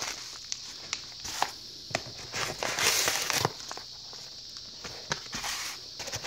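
Packaging being handled: crinkling and rustling, with scattered small clicks and knocks.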